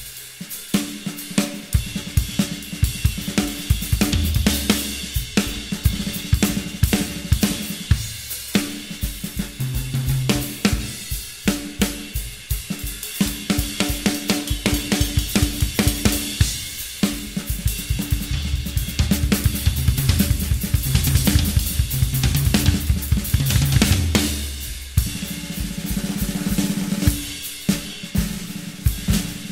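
Background music: a drum-kit track with a steady beat, cymbals and a bass line.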